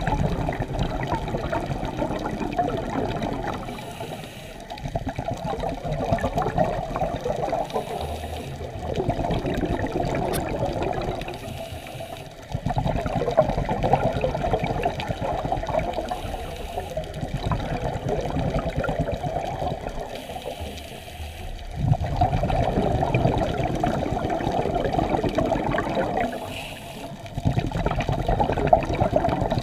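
Scuba diver's exhaled bubbles rushing from the regulator, heard underwater: a muffled bubbling rush lasting a few seconds, broken by a short quieter pause every four to five seconds between breaths.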